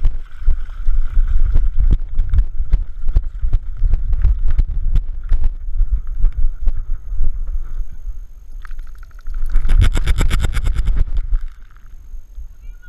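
Muffled rumbling, thumping and rubbing of a GoPro camera strapped to a running Bernese mountain dog's back, jolted by her footfalls in a quick uneven rhythm. About ten seconds in there is a burst of fast, even rattling lasting a couple of seconds, after which it gets quieter.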